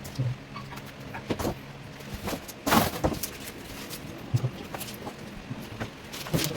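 Irregular knocks and clatter of objects being handled, the loudest a short cluster a little before the middle, over a steady low hum.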